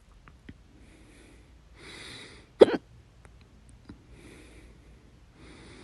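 A person's single loud hiccup about two and a half seconds in, short and sharp with a brief voiced catch in the throat.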